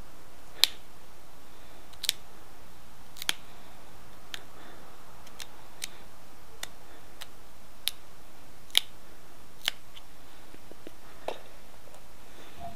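Pressure flaking: an antler tine pecking out the side notches of an Edwards chert arrowhead, small flakes snapping off the stone. About a dozen sharp clicks at uneven intervals, over a steady hiss.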